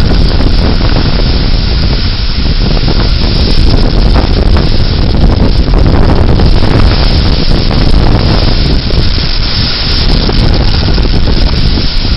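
Severe-thunderstorm wind blowing hard and buffeting the microphone: a loud, dense rush heaviest in the low end, with no let-up.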